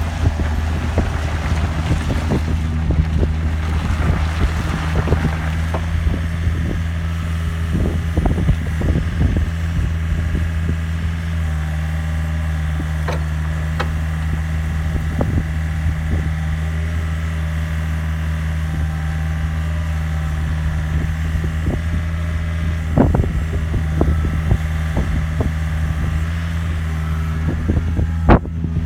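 2006 Takeuchi TB145 mini excavator's diesel engine running at a steady speed, with scattered knocks and clanks from the machine.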